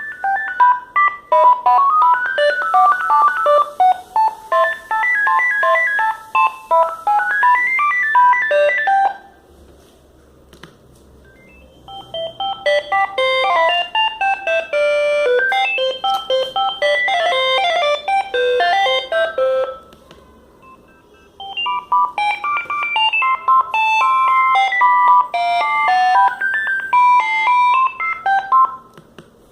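Built-in ringtones of a Sagem MW 3022 mobile phone: three short electronic melodies of quick high notes play one after another. The first stops about a third of the way in; after a short pause the second plays, and after another brief gap the third runs until just before the end.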